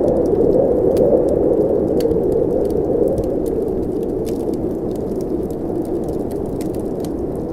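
Blizzard wind blowing in a steady low howl that swells and eases slowly, with a wood fire in a fireplace crackling in small, irregular pops over it.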